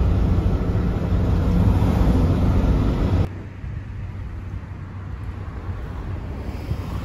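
Loud, steady road noise and engine hum inside a moving car. About three seconds in it cuts off abruptly to a much quieter, steady background hum of a street at night.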